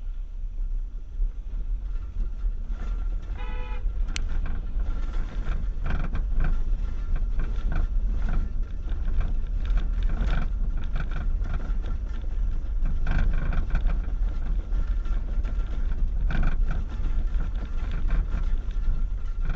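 A car horn toots once, briefly, about three and a half seconds in. Under it runs a steady low rumble of the vehicle heard from inside the car, with irregular knocks and rattles through the rest.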